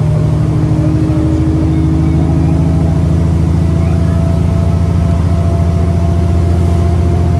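Alexander Dennis Enviro400 (E40D) bus's diesel engine running under load, heard from inside the bus. It is a loud, steady drone whose pitch rises slowly as the bus gathers speed, and the uploader finds it unusually loud for an E400.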